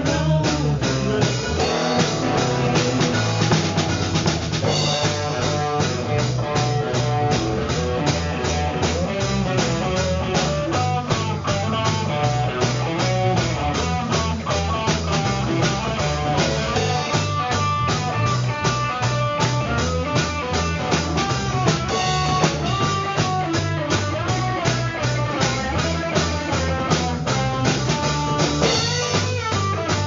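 Live band playing: a drum kit keeping a steady beat under electric guitar and bass guitar.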